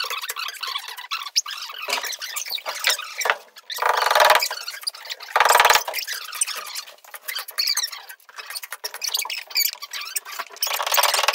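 Metal drywall knife scraping and squeaking across the wall as joint compound is spread, with two louder, longer scrapes about four and five and a half seconds in.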